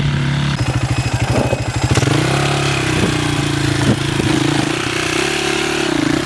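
Enduro dirt-bike engines revving under load on a steep rocky climb, the pitch rising and falling with the throttle over a steady lower engine note.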